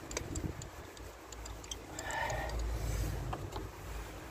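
Hand ratchet clicking in short irregular runs as a new spark plug is screwed down in its well, over a low wind rumble on the microphone.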